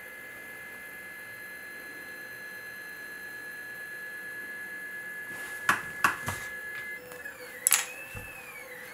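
Stepper motors of a rolling pen plotter whining as the pen is dragged through baking soda. The whine holds one pitch at first, then, a little after the middle, turns into tones that rise and fall in repeated arcs as the motors change speed. A few sharp clicks, the loudest sounds, come a little past the middle and again near the end.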